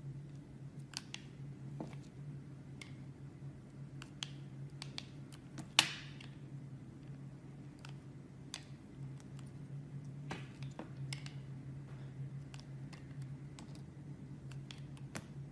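A knife cutting into a bar of soap: irregular crisp clicks and crackles, with one sharp, loud snap about six seconds in, over a steady low hum.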